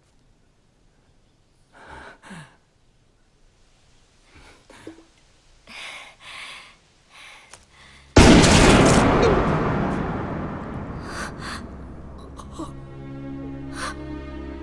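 A few short, sharp breaths and gasps, then a sudden loud film-score impact hit that fades away over several seconds, giving way to sustained tense music.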